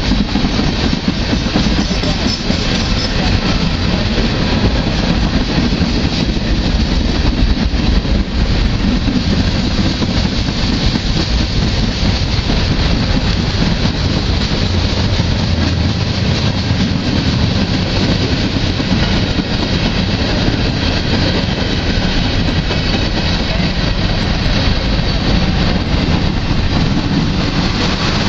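Freight cars of a slow-moving manifest train rolling past: the steady rumble and clatter of steel wheels on the rails.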